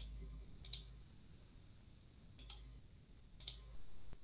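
Four single clicks of a computer mouse, the first two close together and the last two about a second apart, as the screen share of a presentation is set up.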